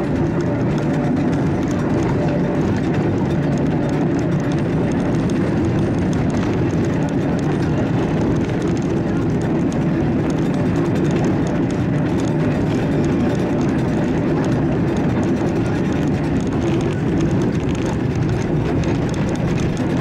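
Tram running along street track, heard from inside: a steady rumble of wheels on rails and motor.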